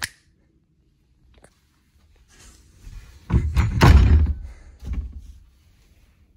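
Knocks and thuds of a closet and its shirts on hangers being handled, after a near-silent first two seconds; the loudest thud comes just under four seconds in.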